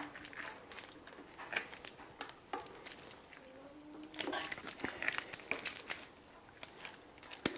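Scattered small metallic clicks and scrapes of hand tools on engine parts: a T-handle box spanner on castle nuts and needle-nose pliers pulling split pins from a Rolls-Royce Meteor V12's rocker gear. The clicks come more thickly from about four seconds in.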